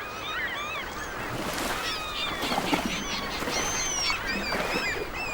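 Many birds calling together, with short overlapping calls throughout.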